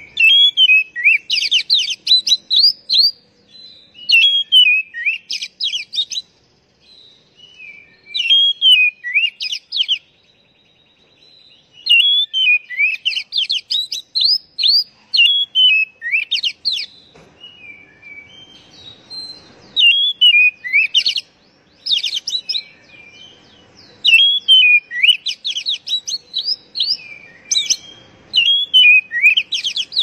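Oriental magpie-robin (kacer) singing: loud phrases of quick, varied whistles and trills, each a second or two long, with short pauses between them.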